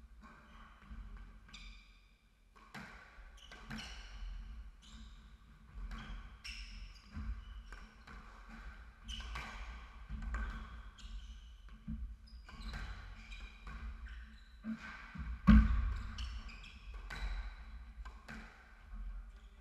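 Squash rally: the ball cracks off rackets and thuds off the walls about once a second, with sneakers squeaking on the hardwood court between shots. One much louder hit comes about fifteen seconds in.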